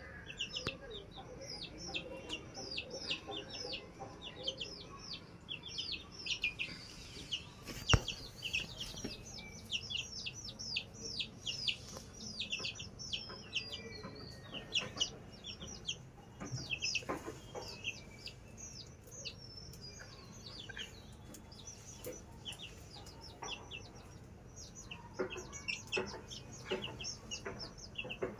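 Young chicks peeping continuously: many short, high, falling cheeps, several a second, from more than one bird. A single sharp click about eight seconds in.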